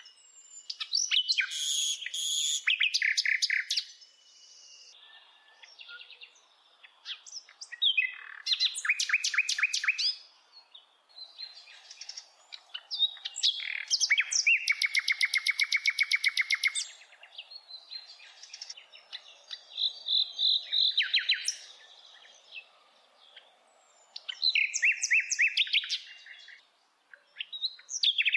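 A songbird singing in phrases of rapid trills and chirps, about six phrases of one to four seconds each, separated by short pauses.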